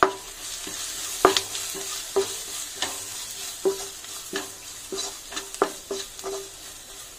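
Wooden spatula scraping and tapping against a nonstick pan, a stroke every half second or so, as chopped onions and masala powders are sautéed in hot oil. Under it the oil sizzles steadily.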